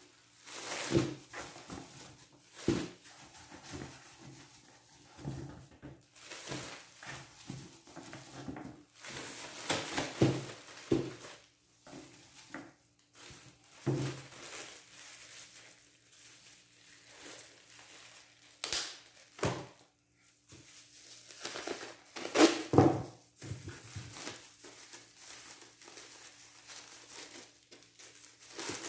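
Thin plastic bags and disposable plastic gloves crinkling and rustling in irregular bursts as hands open the bags and pack blocks of white cheese into them.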